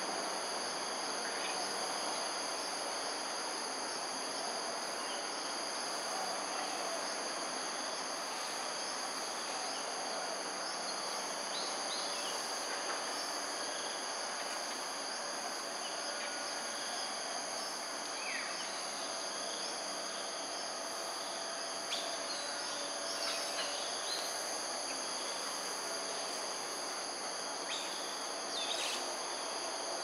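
Steady insect chorus, a continuous high-pitched drone on several pitches at once, over a constant hiss of background noise. Short high chirps come through now and then from about halfway on.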